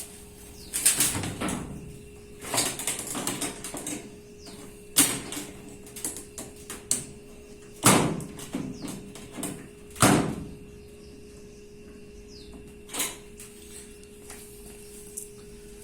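Irregular metal knocks and clatters as a washing machine is worked apart by hand to free the drum and its mechanism. There are a few loud single knocks among bursts of rattling, over a faint steady hum.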